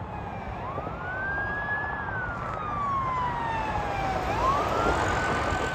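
Emergency vehicle siren wailing: the pitch rises quickly, slides slowly down over a couple of seconds, then rises again near the end, over a steady wash of road traffic noise.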